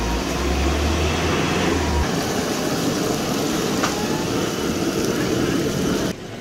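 Fish deep-frying in a large karahi of bubbling oil over a gas burner: a steady, dense sizzle and rush, with a low rumble in the first two seconds. It cuts off suddenly about six seconds in.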